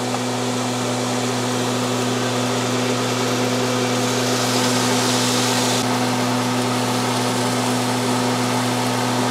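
Stove exhaust fan running with a steady hum over an even rush of air. A higher hiss rises for about two seconds midway.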